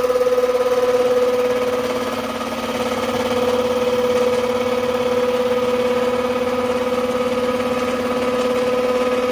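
Small Warco milling machine running with its gear cutter taking the final tooth cut in a bronze gear blank: a steady, loud machine whine that holds even throughout.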